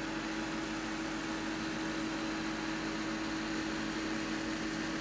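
Desktop computer's cooling fans running: a steady whir with a constant low hum.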